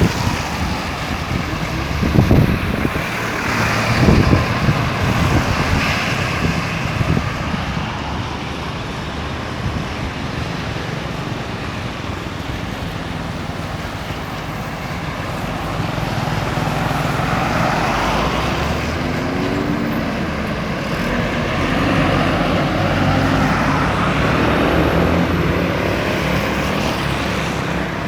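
Road traffic on a busy highway: cars and trucks passing in a steady wash of tyre and engine noise that grows louder in the second half. A couple of low thumps come about two and four seconds in.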